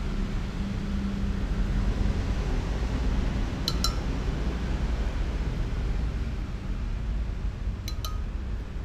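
A metal spoon clinking against the rim of a blender jar as dragon fruit flesh is scraped into it: two quick clinks a few seconds in, and two more near the end. A steady low rumble runs underneath.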